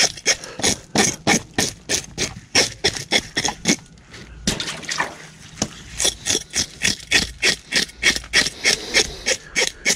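Fish scaler scraping the scales off a whole white perch in quick strokes, about four a second, with a short pause about four seconds in. White perch scales are tough and take digging in to get off.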